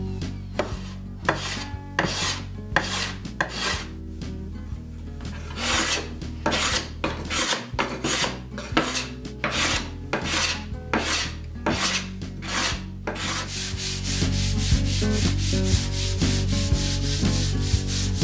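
Sandpaper rubbed by hand across a wooden cutting board in back-and-forth strokes, spaced and uneven at first with a short pause, then quick and even at about four strokes a second near the end.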